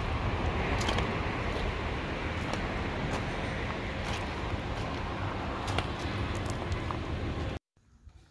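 Wind buffeting the microphone outdoors: a steady rushing noise, heaviest in the lows, with a few faint short high ticks. It cuts off abruptly about seven and a half seconds in.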